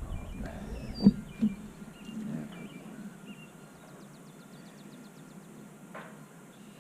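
Small birds chirping, with a quick high trill in the middle. Two knocks about a second in are the loudest sounds.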